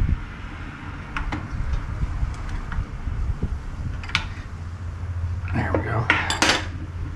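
Metal drill press parts and tools clinking as they are handled: a few scattered light clicks, then a louder metallic clatter lasting about a second near the end.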